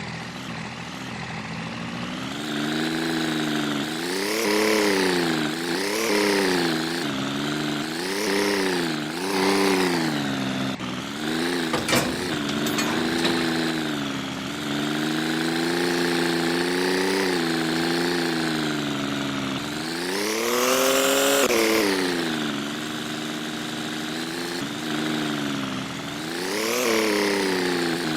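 A small engine revving up and down over and over, its pitch rising and falling every second or two, with a longer, higher rev about twenty-one seconds in. A sharp click is heard about twelve seconds in.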